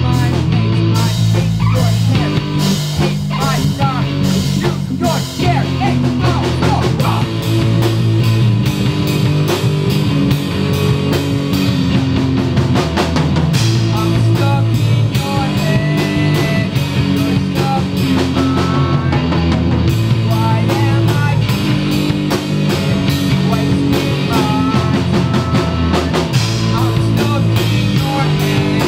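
Live rock band playing: electric guitars, bass guitar and drum kit, loud and steady.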